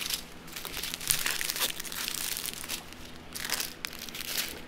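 Small clear plastic zip bags of diamond-painting drills crinkling as they are handled, in irregular rustles that come and go.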